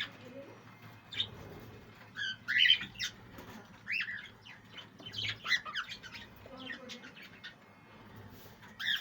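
Budgerigars calling in short chirps, in scattered clusters of a second or less; the loudest comes about three seconds in.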